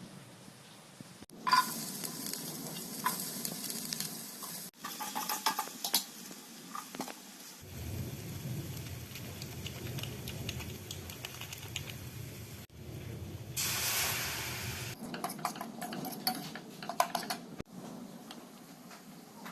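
Food frying in a pan: a steady sizzle while a spoon stirs, with sharp clicks and scrapes of the spoon against the pan, broken into several short pieces by abrupt cuts.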